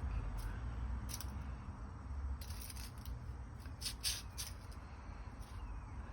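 Faint rustling with a few short, light clicks over a low background rumble.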